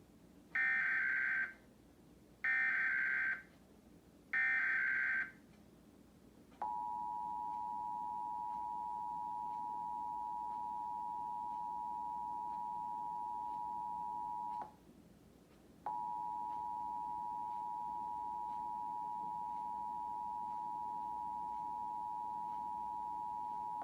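Emergency Alert System test tones: three short bursts of the SAME digital data header, each about a second long, then the steady two-tone EAS attention signal, held about eight seconds, cutting out for about a second and sounding again for about another eight.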